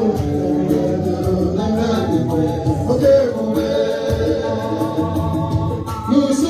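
Gospel praise singing: a man sings into a microphone with others singing along, over a steady beat.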